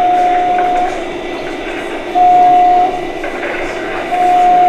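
Horn from a G-gauge model train's sound unit: a single steady tone, sounded three times, each blast about a second long and about two seconds apart. A steady hall hubbub runs underneath.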